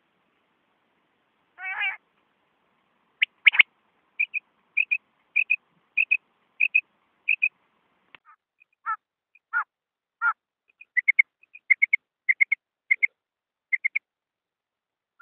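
Quail calls from a hunting lure recording: a run of short, high doubled notes repeated about every 0.6 seconds, three lower notes in the middle, then another run of doubled notes. The recording mixes male and female quail calls.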